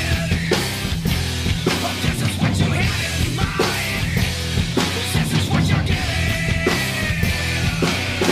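Loud heavy rock music with a drum kit played hard and fast. A held, high melody line comes in about six seconds in.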